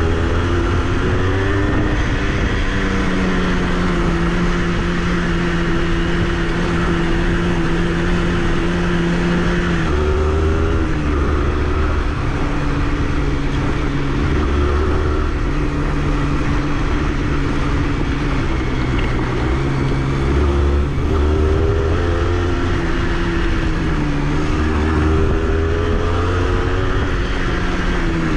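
Honda CRM80's two-stroke single-cylinder engine running as the bike is ridden, holding steady revs for long stretches, with the pitch dropping and climbing again about ten seconds in and several more times near the end as the throttle and gears change.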